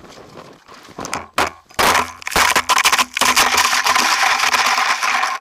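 Snow scraping and crunching against an action camera's microphone as the camera slides and tumbles through the snow in a fall, a loud rough rasp with many sharp knocks that cuts off suddenly.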